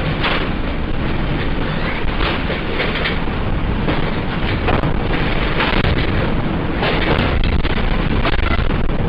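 Simulated earthquake rumble: a loud, continuous deep rumbling noise with rushing surges every second or so.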